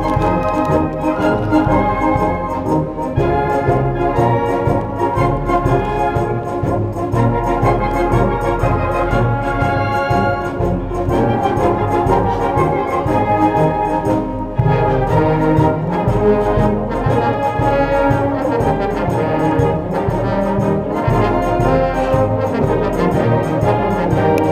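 A youth concert band playing live, a full ensemble of brass, woodwinds and percussion, with the brass most prominent.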